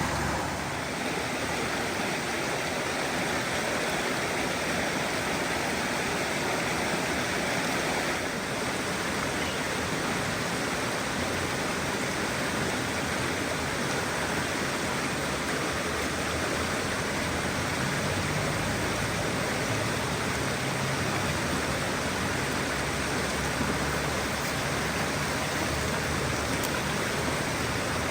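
Waterfall water falling and rushing in a steady, unbroken wash of noise, its tone shifting slightly about eight seconds in.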